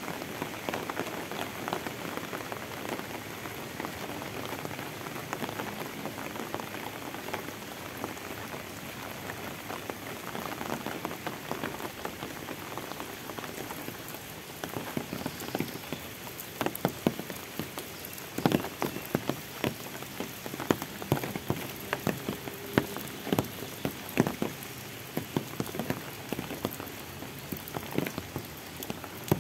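Steady rain falling on the road and vegetation. From about halfway through, scattered sharp ticks of nearby drops stand out more often.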